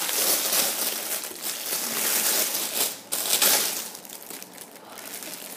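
Crinkly clear plastic bag being pulled off a squishy toy: a dense, crackling rustle. It is loudest for the first three to four seconds, then eases.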